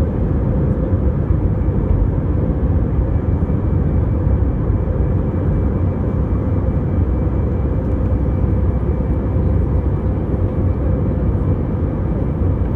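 Jet airliner engines and rushing air heard inside the cabin beside the wing during the climb after take-off: a loud, steady low rumble with a faint steady hum.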